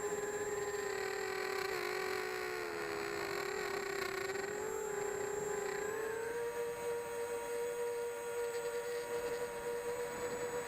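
E-Turbine 250 v2 quadcopter's brushless motors whining steadily, the pitch wavering a little and then stepping up slightly about six seconds in.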